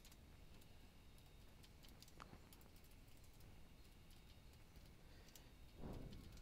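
Faint computer keyboard typing, a few scattered keystrokes, with a brief soft low noise near the end.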